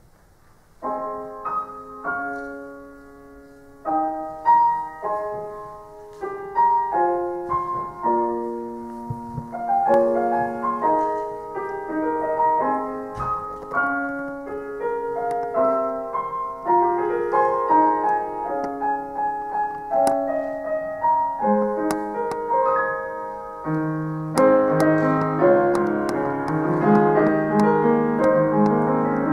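Grand piano played solo: an arrangement of a J-pop song. It starts about a second in with spaced chords and single notes, and grows fuller and louder about two-thirds of the way through.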